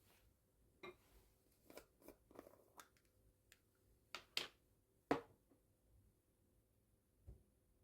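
Scattered light clicks and taps of objects being handled, about a dozen short knocks with the loudest two around four to five seconds in, and one more near the end.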